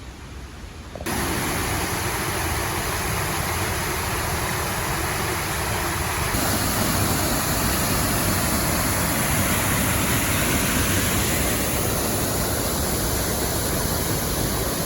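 Steady rushing roar of a waterfall, an even hiss spread across high and low pitches, starting abruptly about a second in.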